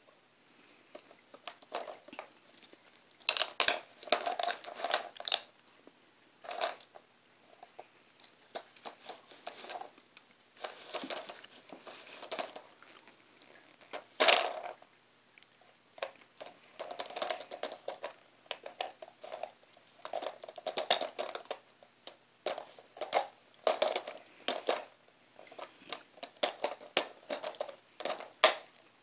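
A dog nosing at a plastic treat puzzle toy, working its caps and compartments, giving irregular bursts of plastic clacking and scraping with a few louder knocks.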